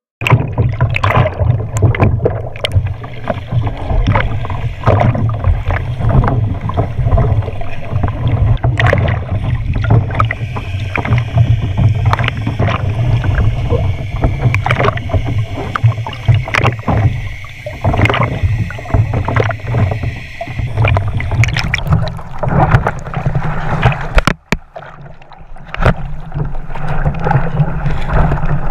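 Lake water splashing and sloshing over a GoPro mounted low on a kayak's bow as it dips in and out of the waves: many sharp splashes over a steady low rumble, with a brief drop about twenty-four seconds in.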